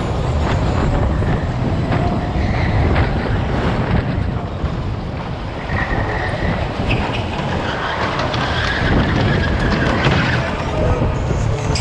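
Go-karts racing in a close pack, heard from on board one kart: steady motor and tyre noise with wind buffeting on the microphone, and a few brief high squeals in the middle and near the end.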